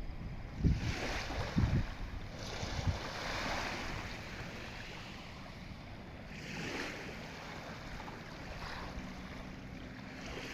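Sea waves washing in and out, rising and falling in swells, with a few low thumps about a second apart in the first three seconds.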